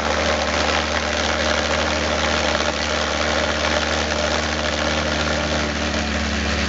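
Valveless pulse jet engine running with a steady, low-pitched drone and a rushing hiss.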